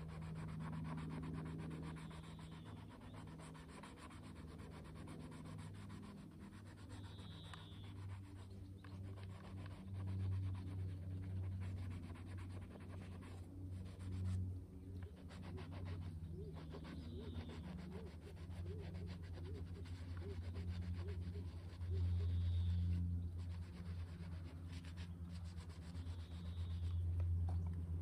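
Rapid rubbing strokes on the metal blade of a pair of loppers as it is scrubbed clean, over a low steady hum. A few short faint bird chirps come through.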